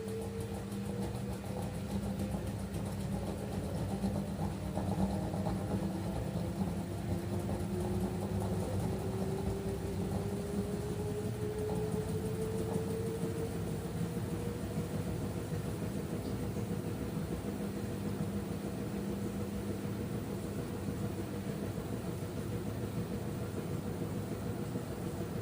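LG F10B8MD front-loading washing machine in its final spin on the cotton cycle, 800 rpm: a steady hum under a motor whine. The whine rises in pitch as the drum speeds up, then holds steady about halfway through.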